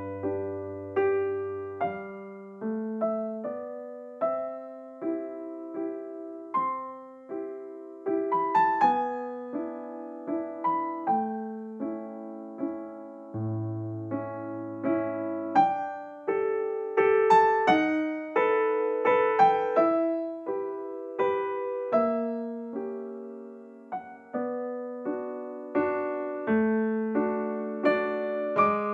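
Background music: a gentle piano melody, single notes and chords struck one after another and fading away.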